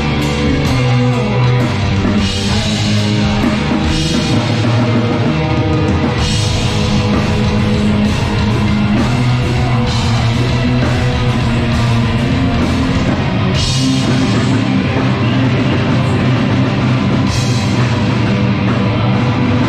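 Black metal band playing live: drums, distorted guitars and keyboards holding long low notes that change pitch, with a cymbal crash every three to four seconds.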